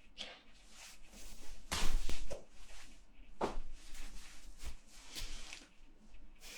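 Hands clapping and slapping in irregular strokes, loudest in a quick cluster about two seconds in.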